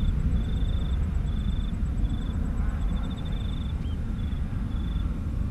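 Distant low rumble of a Boeing 757-200's jet engines as it flies away, steady throughout, with short bursts of high, rapid chirping repeating over it.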